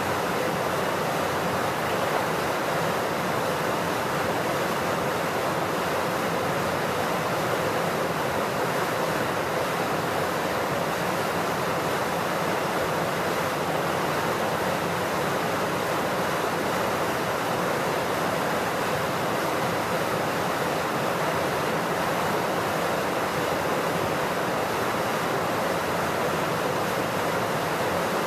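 Steady rush of water pouring through a sluice gate.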